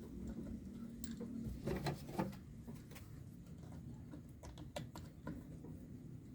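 Ceiling fan running with a low steady hum, with irregular light clicks and ticks over it, a cluster of them past the middle.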